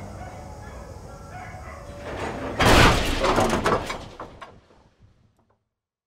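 Faint street traffic, then about two and a half seconds in a sudden loud slam followed by a rattling clatter that dies away over about two seconds.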